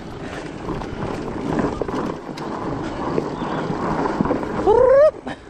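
Fat-tire mountain bike rolling along a dirt singletrack and onto a wooden log bridge, the tyres rumbling over the ground, with rattles and clicks from the bike. Near the end there is a brief, loud rising tone.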